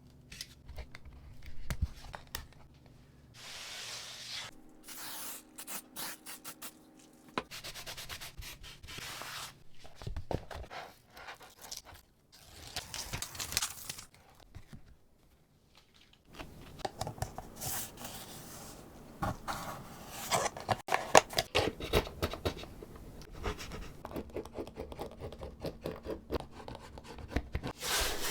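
Hand work on wooden parts: bouts of rubbing or sanding strokes, broken by short pauses, with a dense run of clicks and knocks past the middle.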